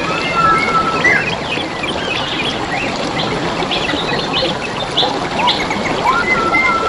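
Several wild birds chirping and whistling in short notes, some rising in pitch, over the steady babble of flowing stream water.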